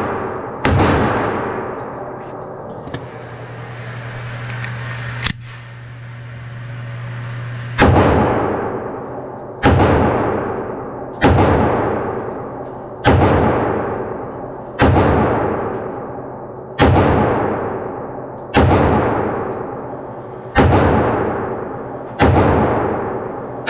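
Glock 21 Gen 4 .45 ACP pistol fired in slow, deliberate single shots, each shot ringing with a long echo in the enclosed indoor range. One shot comes near the start, then after a pause of about seven seconds with a low hum and a couple of small clicks, nine more follow at a steady pace, one every one and a half to two seconds.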